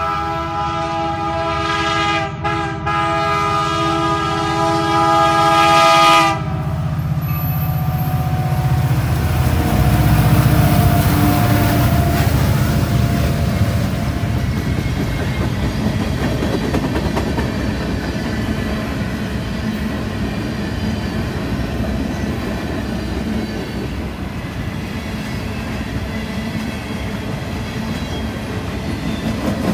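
Lead diesel locomotive's air horn sounding for the grade crossing, with two brief breaks, and cutting off about six seconds in. The locomotives (an SD70MAC and an SD40-2) then pass with a heavy engine rumble, loudest around ten seconds in. After that comes the steady rumble and clickety-clack of ballast cleaners and hopper cars rolling by.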